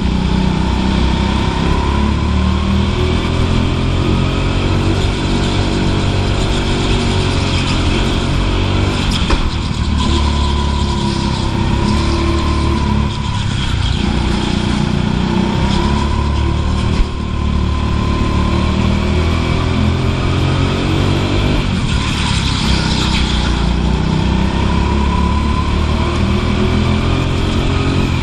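Go-kart engine heard from onboard, its revs rising along the straights and dropping into the corners, over and over. A single sharp knock a little past halfway.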